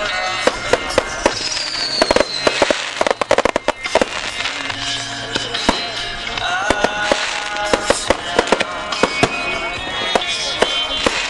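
Fireworks going off: many sharp bangs and crackles in quick succession, over music.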